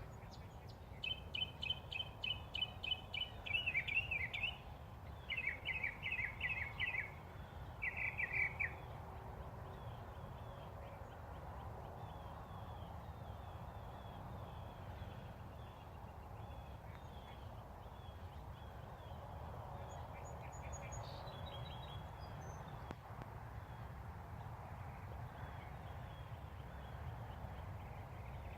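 A bird calling in three quick bouts of rapidly repeated high notes during the first nine seconds, followed by fainter scattered chirps, over a steady low rumble.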